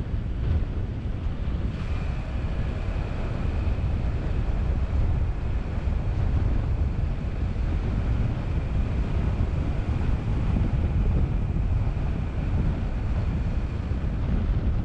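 Wind buffeting the microphone of a moving car's camera: a steady low rumble mixed with the car's road and tyre noise. A faint steady high whine joins in about two seconds in.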